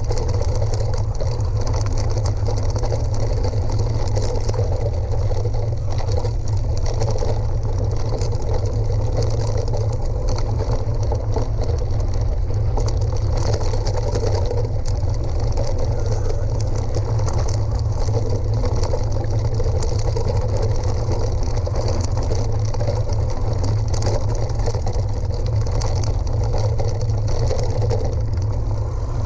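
Steady noise of riding along a rough gravel forest track: tyres rolling over loose stones, with constant wind rumble on the ride-mounted action camera's microphone.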